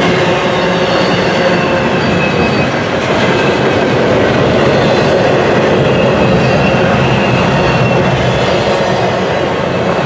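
Loaded double-stack intermodal well cars of a freight train rolling past: steel wheels on rail making a loud, steady rumble and rattle, with faint high-pitched whines coming and going.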